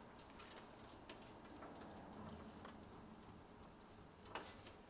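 Near silence: room tone with a few faint, scattered clicks, one a little louder near the end.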